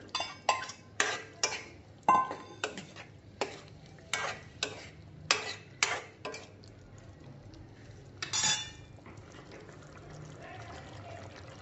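Metal utensils clinking and scraping in a steel kadhai as raw banana pieces are tipped into the masala and stirred: about a dozen sharp strikes over the first six seconds, one longer scrape about eight seconds in, then only a faint steady background.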